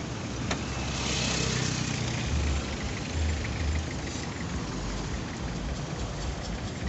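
Roadside traffic: a steady low engine rumble from passing vehicles. About a second in, one vehicle passes close and its tyre hiss swells.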